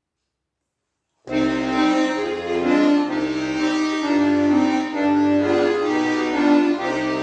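Tula bayan (Russian button accordion) starting to play about a second in: a folk melody over sustained chords, with bass notes changing beneath.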